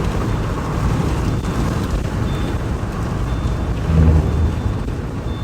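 Steady low rumbling noise with a brief louder low thud about four seconds in.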